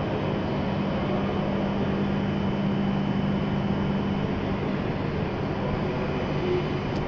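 E7-series Shinkansen train standing at the platform: a steady hum and whir from its onboard equipment and cooling blowers. A faint high whine fades out about four seconds in.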